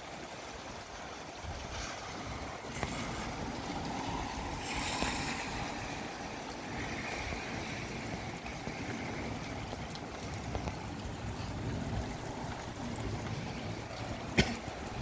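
Gusty wind and rain: a steady rushing that swells and eases, loudest about five seconds in. A single sharp click near the end.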